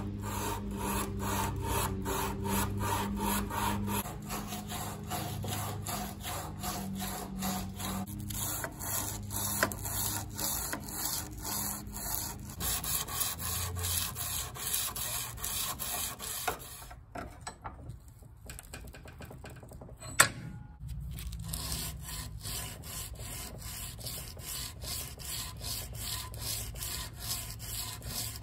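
Hand sanding a Damascus steel knife blade with sandpaper, in quick back-and-forth strokes at about three a second, moving from 120 to 400 grit. The strokes lull briefly about two-thirds of the way through, with one sharp tap in the pause.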